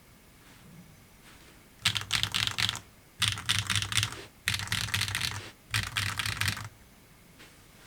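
Mechanical keyboard with HMX KD200 switches on an aluminium top-mount plate with no foam inside, typed on in four quick runs of keystrokes with short pauses between them, starting a little under two seconds in and stopping about a second before the end.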